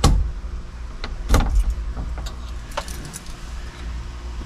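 Small metal knocks and clicks of a screwdriver working the ignition lock cylinder loose in a 1968 Pontiac LeMans steering column. There is a sharp knock at once and another about a second and a half in, then a few lighter clicks, over a steady low hum.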